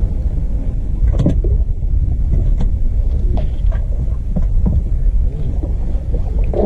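Steady low rumble on a small fishing boat, with a few light knocks.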